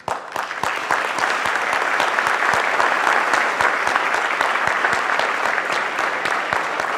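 Audience applause, many people clapping together, starting suddenly and going on steadily.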